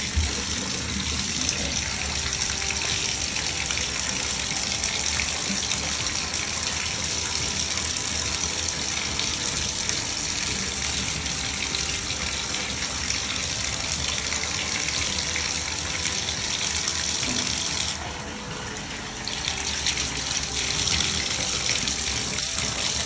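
Water running from a tap into a bathtub and splashing over a dog's wet coat, a steady rush that goes quieter for a second or two about eighteen seconds in before picking back up.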